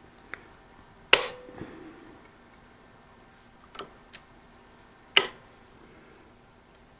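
A handful of sharp metal clicks and knocks from tools and hardware being handled during the install, spaced irregularly. The loudest comes about a second in and rings briefly like struck metal, and another strong knock comes about five seconds in.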